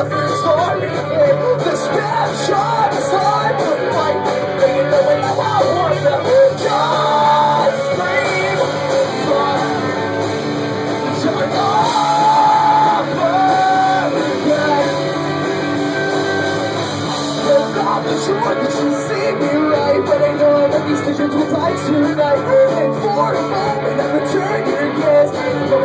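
Live rock band playing loud: electric guitars and drums, with vocals.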